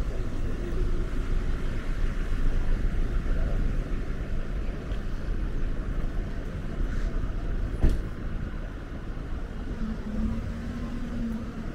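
City street traffic: cars and other vehicles going by as a steady low rumble. There is one sharp knock about eight seconds in, and a short low hum near the end.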